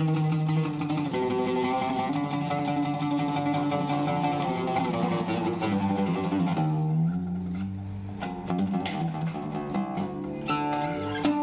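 Solo oud with a cedar top and Pyramid strings, played with a pick. A fast passage of rapidly plucked notes gives way, about seven seconds in, to slower, sparser notes.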